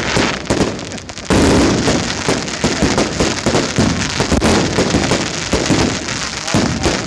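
Aerial fireworks going off in a rapid, dense barrage of bangs and crackling, building into a near-continuous volley about a second in.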